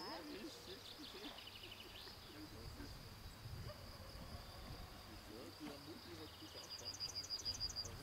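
Insects chirping in the grass: a steady high trill, then a quick run of about eight louder chirps near the end.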